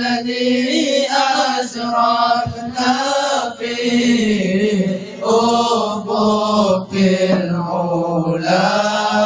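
Male voices singing a Malay qasidah through microphones, a lead voice drawing out long, ornamented notes that slide up and down, with other voices joining in.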